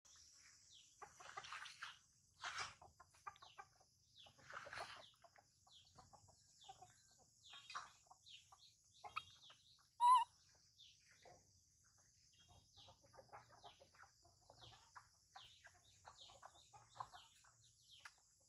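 Chickens clucking in a run of short calls, with one louder call about ten seconds in, over a steady high hiss.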